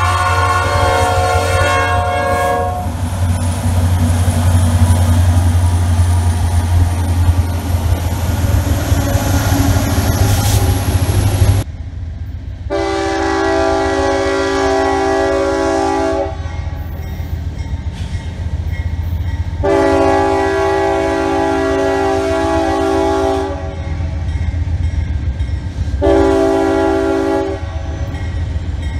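Diesel freight locomotive horn sounding a chord, then the train rumbling past with a heavy low engine drone. After a break, a locomotive horn blows long, long, short, long: the standard grade-crossing signal.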